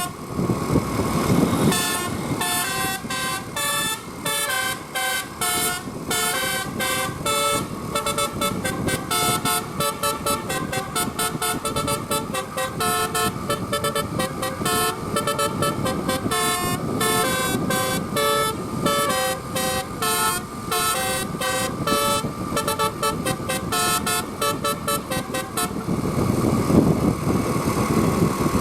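Bus 'telolet basuri' musical horn playing a fast tune of short, changing notes over the low running of the bus engine. The tune starts about a second and a half in and stops shortly before the end, leaving the engine alone.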